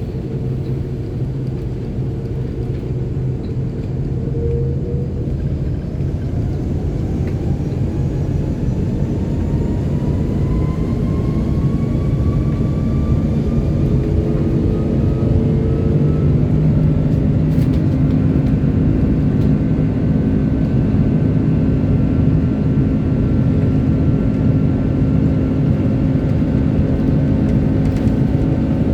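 Airbus A330-300's Rolls-Royce Trent 700 turbofan engines heard inside the cabin spooling up for takeoff. A steady rumble builds in loudness, and a whine rises in pitch over several seconds before settling into steady higher tones.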